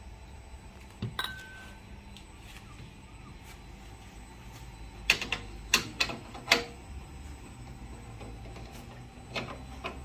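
Sharp metal clicks and clanks of a Milesto Elaine M3 espresso machine's portafilter being knocked against and twisted into the group head, loudest in a cluster about five to six and a half seconds in, with a couple more near the end. A low steady hum sits underneath.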